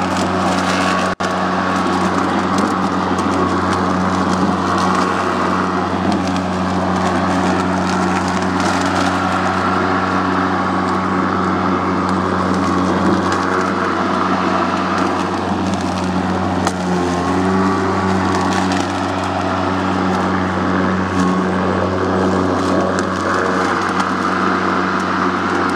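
Snapper XD 82-volt cordless electric lawn mower running steadily as it cuts grass and dry leaves: a constant motor and blade hum with scattered light ticks.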